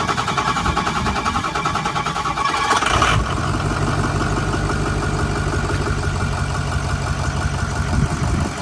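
Ford 6.0 Powerstroke V8 turbo-diesel being cranked by its starter, catching about three seconds in and settling into a steady idle, on its first start with a newly fitted cold air intake.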